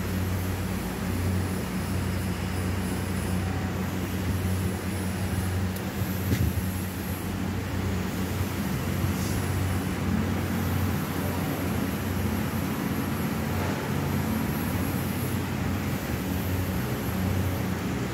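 Steady low mechanical hum over constant background noise, with a couple of faint clicks partway through.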